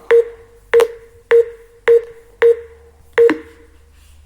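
Six short electronic tick-tones from a computer, about one every 0.6 s, each a sharp click with a brief low tone that dies away. They fit a screen reader's sound cues as keys are pressed.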